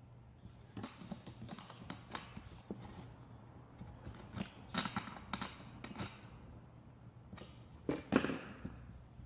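Scattered clicks, taps and knocks of hands and a tool working on a Stihl MS211 chainsaw's plastic covers and parts, with the loudest knock about eight seconds in.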